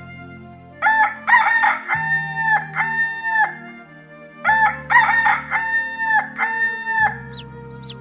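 A rooster crowing twice, two full cock-a-doodle-doos about a second apart, over a soft background music bed.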